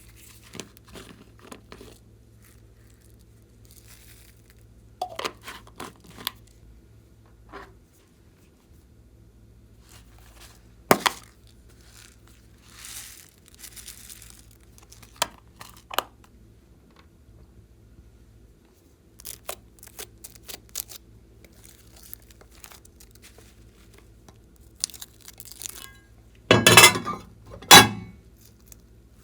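Slime being squeezed and poked by hand: scattered short crackles and sticky pops, with a louder crackly burst near the end.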